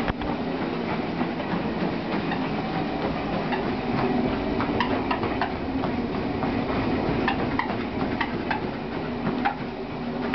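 Motorized treadmill running steadily, its motor and moving belt making a constant hum, with scattered light clicks as a dog walks on the belt.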